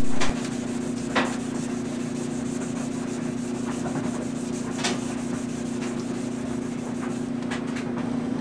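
Hand wet-sanding of cured gelcoat on a fiberglass sailboat daggerboard, wet sandpaper on a block: a steady rubbing scrape with a few louder strokes, over a steady low hum.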